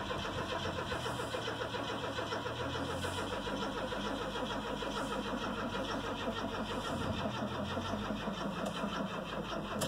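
Chevy S10 pickup's starter cranking the engine in a steady, even rhythm for the whole stretch without it ever catching: the engine is being fed only gasoline vapor from a homemade fuel vaporizer through a duct-taped intake, which the owner suspects is not sealed well enough to pull in enough vapor.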